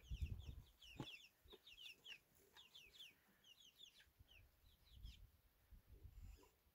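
Chickens giving faint, rapid, high chirps, each one falling in pitch, many in quick succession, with a low rumble and a single knock about a second in.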